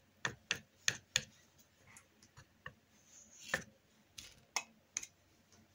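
Palette knife tapping and dabbing acrylic paint onto the painting surface to lay on snow: a dozen or so light, irregular taps, with one longer stroke a little past the middle.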